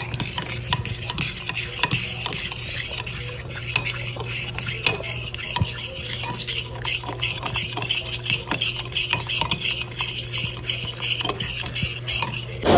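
A metal fork stirring thick pancake batter in a glass bowl: quick, repeated wet scraping strokes, with the fork clinking against the glass.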